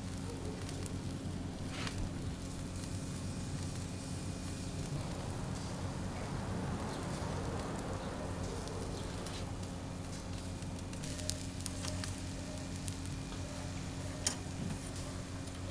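Fish sizzling and crackling over a charcoal grill, over a steady low hum. Three sharp clicks come in the second half.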